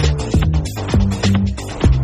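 Background electronic music with a steady, fast beat, about two beats a second, over sustained bass notes.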